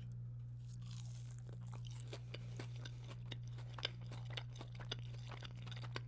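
Close-miked chewing of a breaded fried chicken tender: a run of small crunching clicks, with a steady low hum underneath.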